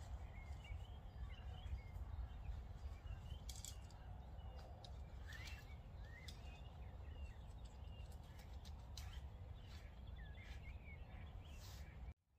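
Faint birdsong, small birds chirping here and there, over a steady low rumble of wind on the microphone, with a few brief rustles; the sound cuts out just before the end.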